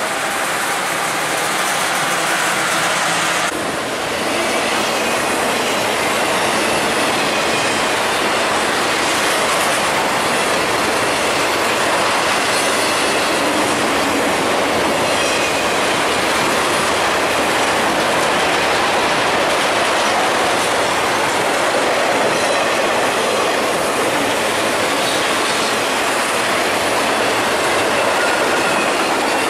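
Intermodal freight train of highway trailers on flatcars passing close by at speed: a steady, loud rush of steel wheels on rail with rattling cars, unbroken for the length of the train.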